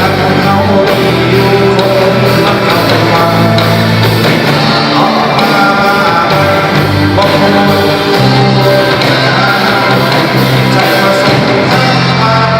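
A live band playing rock music, with a singer.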